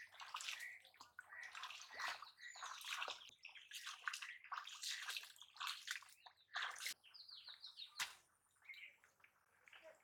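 Irregular splashing and sloshing of shallow water as hands grab a catfish inside a bamboo polo fish trap, with birds chirping now and then.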